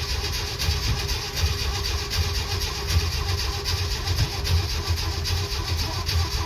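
1969 Jeep CJ5 engine running roughly on a cold start after months of sitting, with a rapid, uneven pulsing exhaust note.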